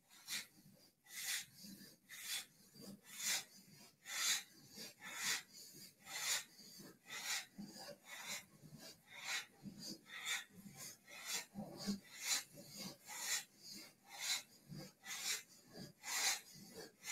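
Strong, rhythmic breathing during a fast kundalini yoga spinal flex, the breath driven in and out as the spine rocks forward and back, about two breath sounds a second.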